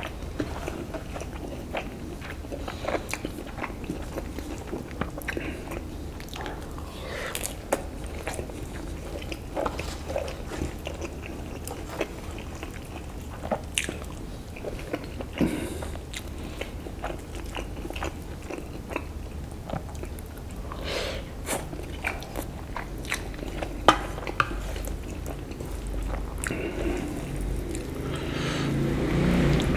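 Close-miked chewing and biting of instant noodles and tahu tek (fried tofu in peanut sauce): a steady run of wet mouth smacks and short clicks, with a sharper click about two-thirds of the way through.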